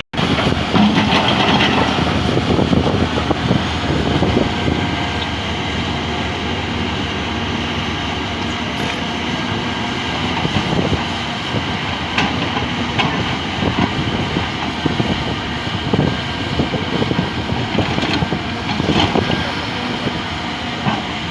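Heavy construction machinery running with continuous rattling and clanking.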